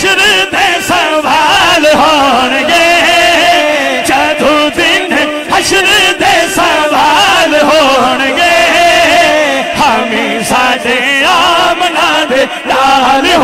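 A man singing a Punjabi devotional kalam into a microphone, the melody ornamented with quick wavering turns.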